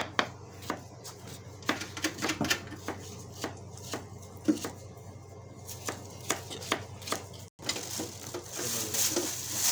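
Irregular light clicks and knocks of tools and parts being handled during refrigerator repair work, over a steady low hum. There is a short break about seven and a half seconds in, followed by a hissier stretch.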